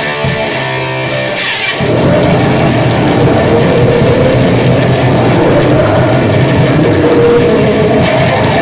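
Grind/noise music: a distorted guitar riff, then about two seconds in a much louder, dense wall of distorted sound takes over and holds.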